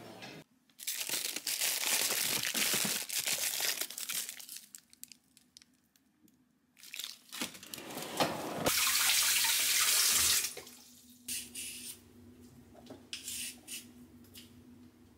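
Kitchen work sounds: water running into a sink and rustling of frozen-food plastic bags in a freezer drawer, then short scraping strokes of a hand peeler on a daikon radish near the end, over a low steady hum.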